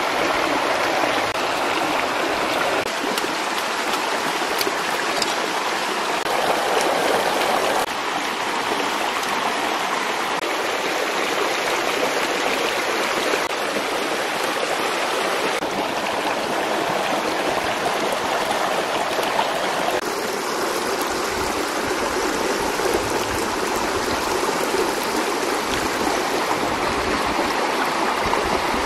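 Steady rush of a stream flowing over rocks.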